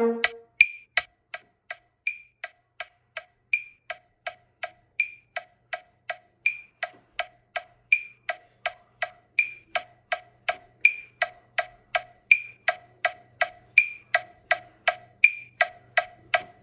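Metronome clicking steadily at 164 bpm, about two and three-quarter clicks a second, through a rest in the baritone horn part.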